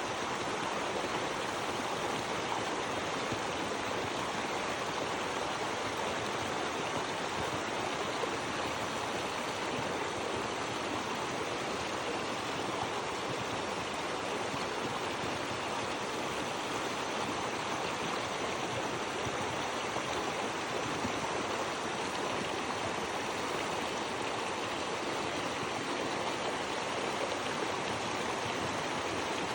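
Swift River's water flowing, a steady, even rushing with no breaks or changes.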